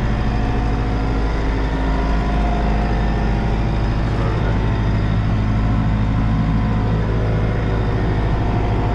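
Tractor engine running at a steady pitch under load, heard from inside the closed cab while it pulls a tillage implement across the field.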